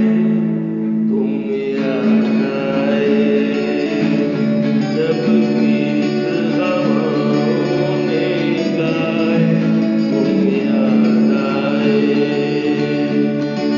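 Unplugged performance of a Hindi song: singing over acoustic guitar accompaniment.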